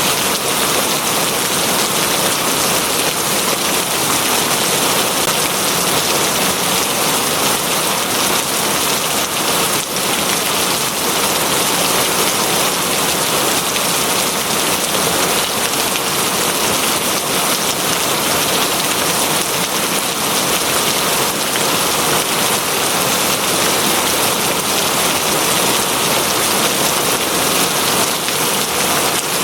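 Steady rain falling and pattering on a surface: an even, unbroken hiss.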